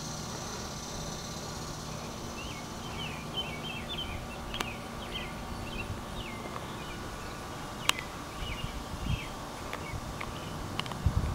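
Small birds chirping in short repeated calls over a steady low hum, with two sharp clicks and a couple of low thumps.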